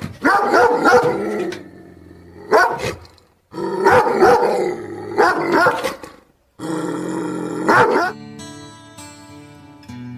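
A dog barking in several loud bursts over the first eight seconds. Gentle acoustic guitar music comes in about eight seconds in.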